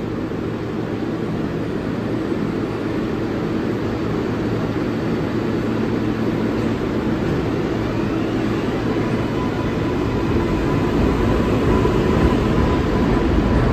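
R188 subway train pulling out of the station: a steady propulsion hum with a rising whine as it gets under way, growing slowly louder as the cars start to pass.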